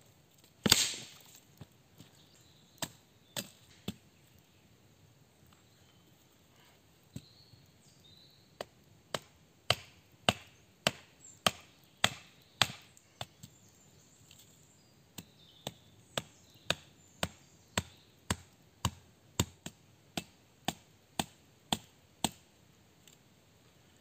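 Small hatchet chopping a wooden stick in quick, even strokes, about two a second, in two runs with a short pause between. A single louder knock comes just under a second in, with a few scattered taps before the runs.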